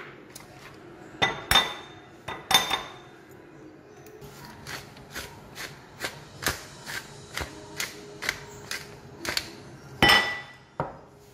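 Eggs being cracked against the rim of a bowl, a few sharp knocks, followed by a wooden pepper mill grinding over the bowl in a run of short, regular clicks about two a second. A loud knock comes near the end.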